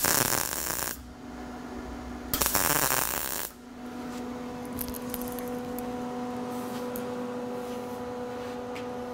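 MIG (wire-feed) welder arc crackling on sheet steel in two short bursts, the first about a second long and the second starting a little past two seconds in, as a lap-weld bead is laid. After that a steady hum runs on.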